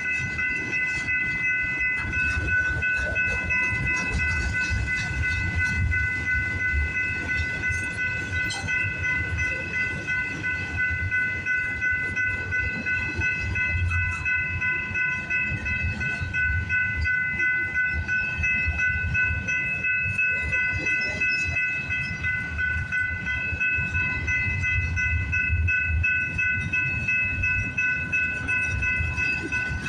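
Freight train rolling slowly past, its wheels and cars making a continuous uneven rumble, over a steady high-pitched ringing tone.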